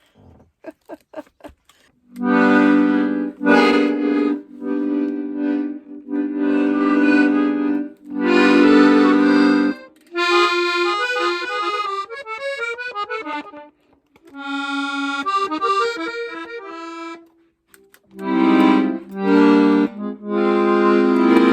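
Small accordion being played: after a few light clicks, held chords sound with short breaks between them, then a run of single notes in the middle, then chords again near the end.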